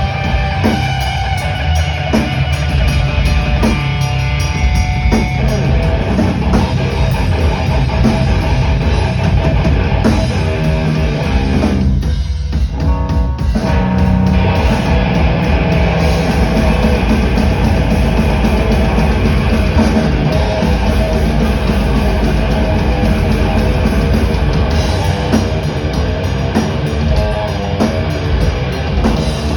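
Screamo band playing loud rock live: electric guitars over a drum kit, during a sound check.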